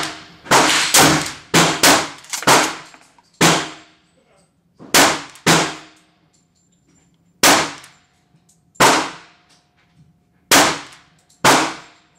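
Gunshots, about fourteen, each with a short echo: a quick volley over the first three seconds, some less than half a second apart, then single shots one to two seconds apart.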